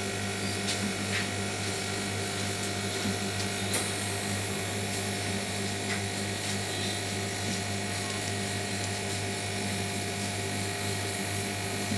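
Power tool motor running steadily while cutting an acrylic panel: an even hum with a few faint ticks.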